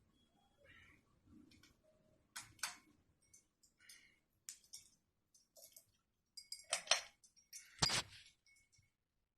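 Irregular light clinks and clicks with quiet gaps between them; the two loudest come about 7 and 8 seconds in.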